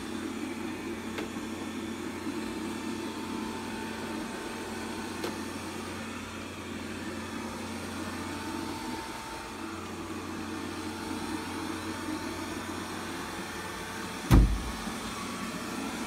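Robit V7S Pro robot vacuum running on carpet: a steady motor and brush hum with a faint whine. A single dull thump comes near the end.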